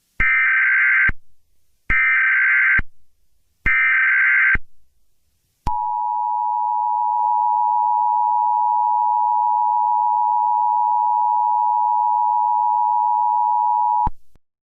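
Emergency Alert System tones: three short bursts of SAME digital header data, each just under a second, followed by the steady two-tone attention signal held for about eight seconds, which cuts off suddenly. Together they mark the start of a new alert.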